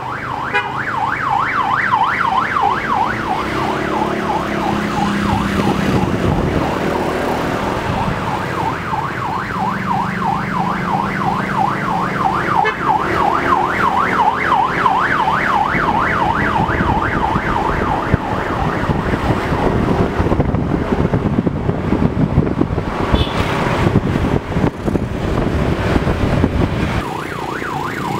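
A vehicle siren in fast yelp mode, its pitch sweeping up and down several times a second, over the engines of passing vans and motorbikes. The siren weakens in the last third while engine and traffic noise carries on.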